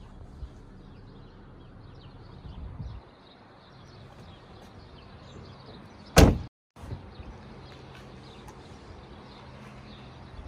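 A car door on a 2015 Tesla Model S being shut: one loud, sharp thud about six seconds in. Before it there is some low rustling and handling noise as someone gets out of the car.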